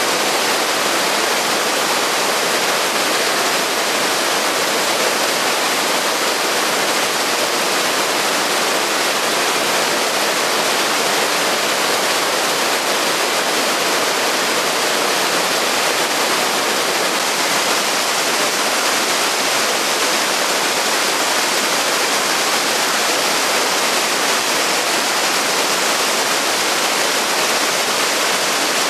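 Waterfall spilling over rocks and a rocky mountain stream rushing below, a steady loud rush of water with no let-up.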